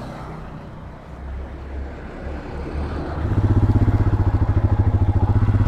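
Royal Enfield Himalayan 411's single-cylinder engine running. A low rumble grows louder, and from about three seconds in it becomes a loud, rapid, even pulsing.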